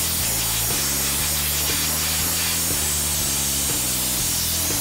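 Compressed air blasting from an air blow gun onto a freshly heated supercharger pulley, a loud steady hiss, cooling the pulley after it has been fitted onto the supercharger shaft.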